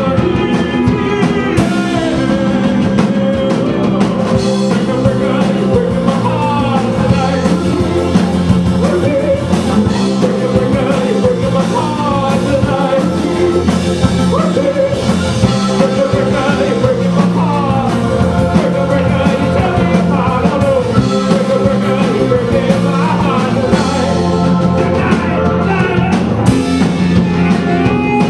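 Indie rock song with a sung lead vocal over a full band with drum kit.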